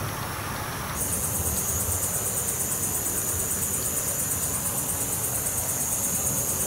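Night insects chirping, a steady high, rapidly pulsing trill that comes in suddenly about a second in, after a soft hiss.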